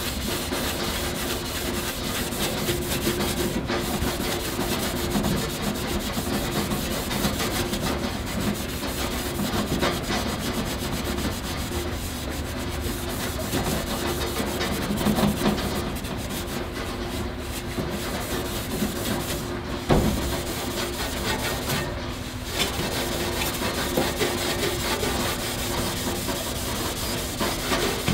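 Red Scotch-Brite pad scrubbed back and forth over stainless steel grill panels, a continuous rough rubbing as it cuts hard baked-on grease and yellow tint off the metal. One brief knock about twenty seconds in.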